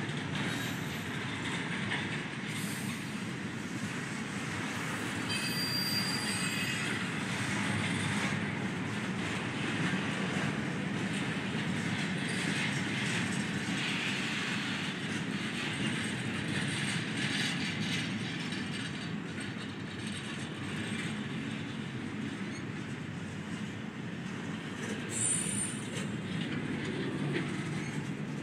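Intermodal freight train of double-stack container well cars rolling past: a steady rumble of steel wheels on rail. Brief high-pitched wheel squeals come about five seconds in and again near the end.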